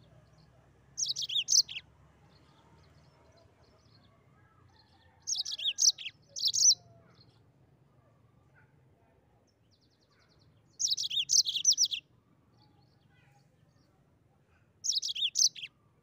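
Yellow-fronted canary (Mozambique canary) singing: four short bouts of quick, high-pitched notes, each about a second long, with pauses of a few seconds between them.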